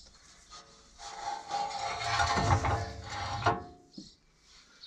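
Metal rubbing and scraping on metal as the tractor's four-wheel-drive shaft is worked up into place underneath. It is a rasping sound with a steady ringing tone that starts about a second in and fades out after about two and a half seconds.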